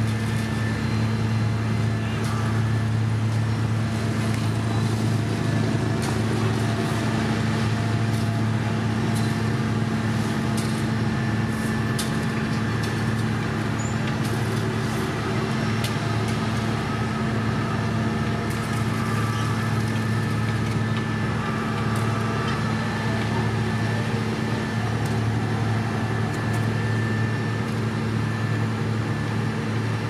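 Diesel engines of a road paver and the dump truck feeding it running steadily, a constant low hum with no change in speed.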